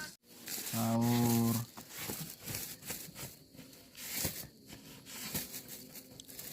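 A steady low tone lasting under a second near the start, then irregular crinkling and rustling of plastic wrapping being handled, with scattered small clicks.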